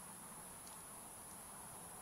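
Quiet room tone: a steady faint hiss with a constant high-pitched whine, and two tiny faint clicks about two-thirds of a second and just over a second in.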